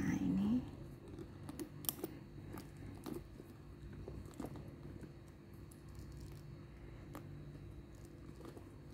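Light metal clicks and taps of gold swivel clasps being hooked onto a leather handbag's metal D-rings, with soft handling of the leather, scattered irregularly over a steady low hum. A short hummed voice sound opens it.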